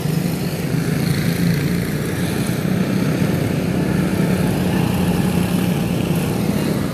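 Quarter midget race cars' small single-cylinder engines running in a steady drone as the field circles at caution pace under the yellow flag.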